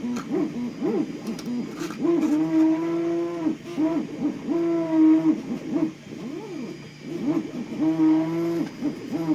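Stepper motors of a Tronxy X3 3D printer driving its axes: whining tones that hold steady for about a second at a time and glide up and down in pitch as the moves speed up and slow down.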